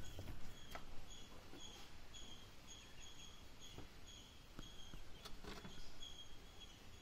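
Faint small bird chirping, a short high chirp repeated evenly about two to three times a second, with a few soft knocks in between.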